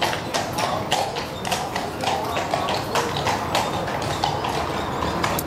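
Horse's hooves clip-clopping on cobblestones, a steady run of sharp knocks about three to four a second, as the horse pulls a carriage.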